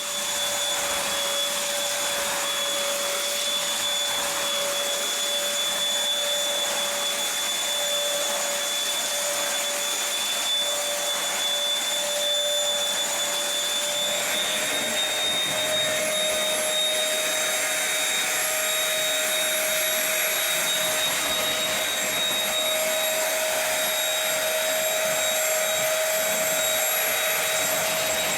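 Dirt Devil SimpliStik corded stick vacuum cleaner running steadily: a rush of air with a constant motor whine, its pitch rising slightly about halfway through.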